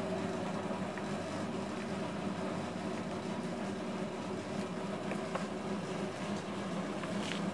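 Small portable cement mixer running steadily, its drum turning a batch of cob mix: soil, straw and crushed bitumen. A few light knocks come through over the motor's hum.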